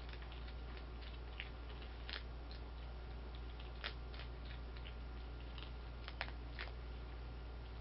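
Skunks crunching dry cat food kibble from bowls: scattered, irregular crisp crunches and clicks, over a steady low hum.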